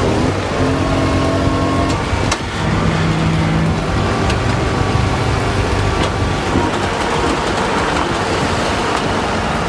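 Heavy truck engine running under load, its pitch stepping up and down as it works.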